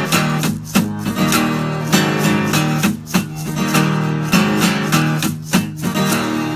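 Solo acoustic guitar strummed in a steady rhythm of chords, an instrumental passage in a country song with no singing.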